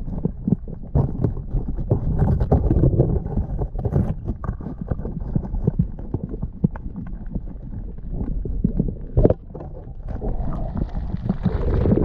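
Muffled underwater rumble of water moving around an action camera's housing, with many irregular clicks and knocks, growing louder in the last second or two.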